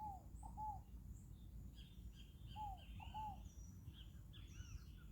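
Faint calls of several birds: short, arching notes repeated a few times, some in quick pairs, with higher chirps from other birds over a low, steady rumble.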